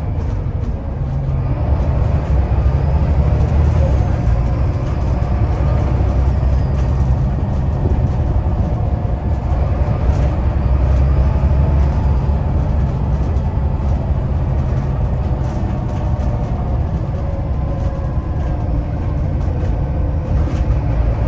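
Volvo B7TL bus's turbocharged Volvo D7C six-cylinder diesel running hard under load with a deep, steady drone, and a turbocharger whistle rising and falling above it.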